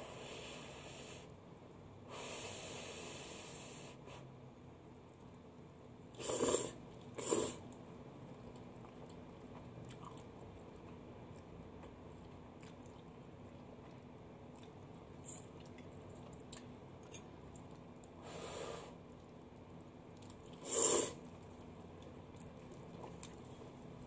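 A person slurping spaghetti bolognese, several short slurps as noodle strands are sucked in, with quieter chewing between them. The loudest slurps come about six and seven seconds in and again near the end.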